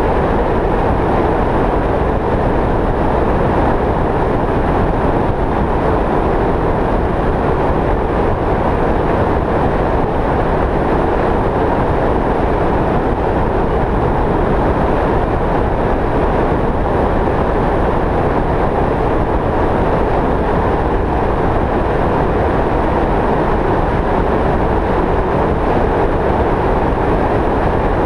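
Steady road and wind noise of a vehicle driving along a highway, an even rushing sound that does not change.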